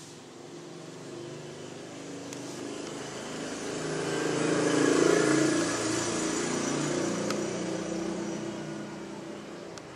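A motor vehicle passing by: its engine grows steadily louder to a peak about halfway through, then fades away.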